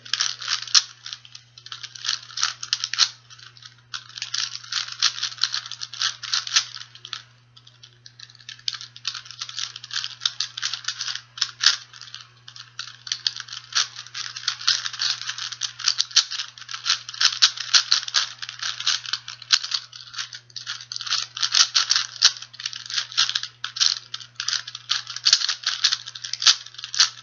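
A 4x4x4 Rubik's cube being turned quickly by hand: rapid, continuous clicking and clacking of its plastic layers, with brief pauses about three seconds in and again around seven seconds.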